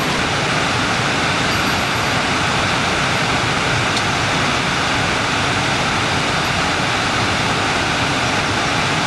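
Mountain stream rushing over rocks: a loud, steady rush of water that stops abruptly.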